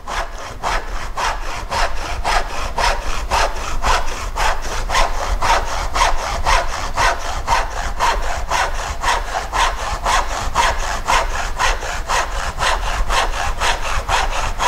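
Tenon saw crosscutting a small piece of wood held on a bench hook, in steady back-and-forth strokes at about four a second.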